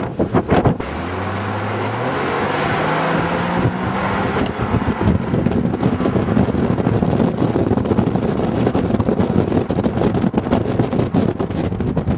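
Car engine accelerating, its pitch rising over a few seconds, then steady road and wind noise as the vehicle drives on.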